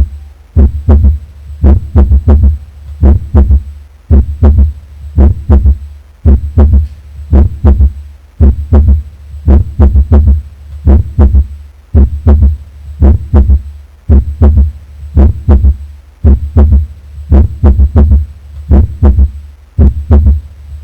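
Heart sounds heard through a stethoscope placed on the back of the chest: a steady rhythm of paired low thumps, the first and second heart sounds (lub-dub).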